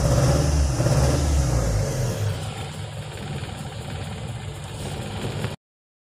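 Toyota Corona's 3S-FE 2.0-litre four-cylinder engine idling, heard from inside the car, running again now that a replacement ECU is fitted after a no-start with no spark. The sound drops in level about two seconds in and cuts off abruptly near the end.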